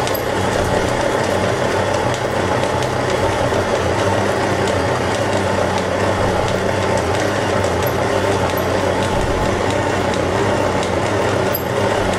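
Stand mixer running at its lowest speed, its dough hook kneading pizza dough in a steel bowl: a steady motor hum. This is the last stage of kneading, with the final oil being worked into the dough.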